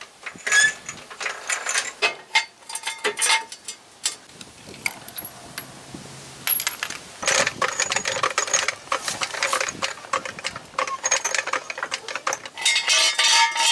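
Irregular metal clicks, clanks and clinks of wheel work on a pickup: a 3-ton floor jack being set under the frame and worked, and a socket and bar on the wheel lock and lug nuts. A dense run of rapid clicks comes near the end.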